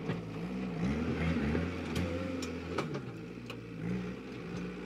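Kubota tractor's diesel engine working under load while pulling a disc plough through dry soil. Its pitch rises and falls, with a heavier low hum through the middle and a few sharp clicks.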